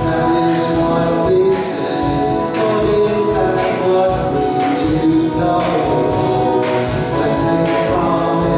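Live hymn-style song: acoustic guitar strummed in a steady rhythm with keyboard accompaniment, and a man singing.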